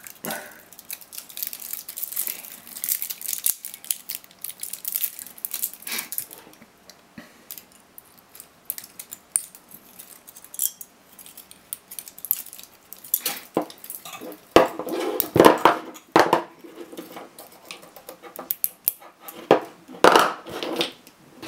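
Pliers cutting and twisting the nickel tabs off 18650 lithium-ion cells in a laptop battery pack: irregular metal clicks, snips and clinks, with crinkling of the insulation paper. The clatter grows louder in the second half, as cells knock against each other and the table.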